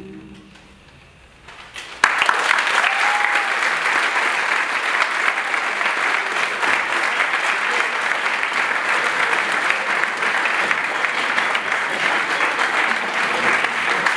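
The last chord of a choir fades away, and after a brief hush an audience starts applauding suddenly about two seconds in, the clapping carrying on steadily.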